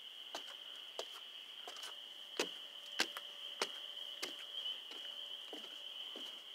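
A steady, high-pitched insect chorus that sounds like crickets trilling without pause, fairly faint. Short soft knocks come along with it about every half second.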